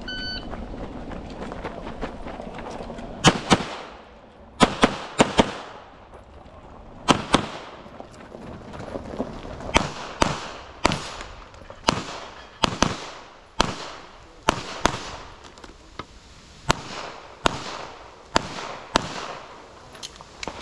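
A short electronic shot-timer beep at the start, then a handgun fired in quick pairs and strings of shots. Pauses of a second or two fall between strings, and each shot cracks with a short echo.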